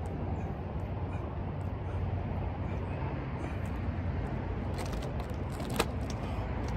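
Steady low outdoor background rumble, with a sharp click a little under six seconds in.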